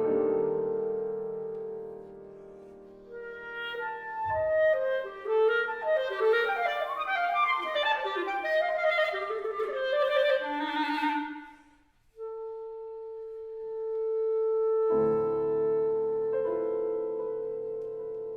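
Clarinet and piano playing classical music: a held note fades, then a flurry of fast notes breaks off into a short pause. The clarinet then holds one long steady note, and a piano chord enters under it a few seconds later.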